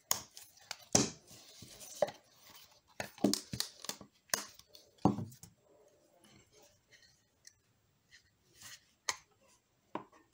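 Handling noise of a hard leather lens case being opened and a camera lens lifted out: a run of sharp knocks, clicks and leather rubs, densest in the first five seconds, then a few scattered taps.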